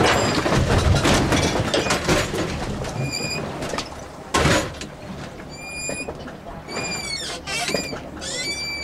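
Rumble and rush of a river boat under way, with wind on the microphone, loudest for the first few seconds. From about three seconds in come several short, high-pitched arched calls, and a brief loud burst comes midway.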